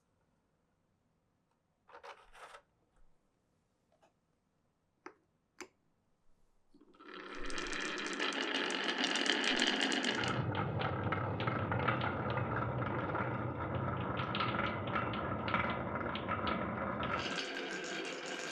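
Marbles rolling and rattling along a wooden marble run. A few separate clicks come first, then from about seven seconds a continuous rolling rattle that turns deeper about ten seconds in and brighter again near the end, as the marbles move onto different track sections.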